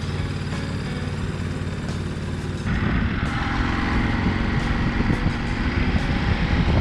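Ducati DesertX parallel-twin motorcycle engine idling steadily, then about two and a half seconds in the sound switches abruptly to a louder, rougher engine sound with more hiss.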